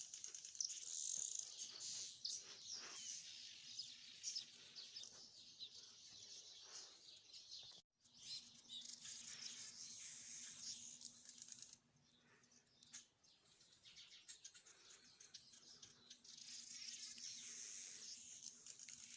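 Small birds chirping and twittering in a dense, continuous high chatter. The sound cuts out completely for a moment about 8 seconds in and is quieter for a few seconds past the middle.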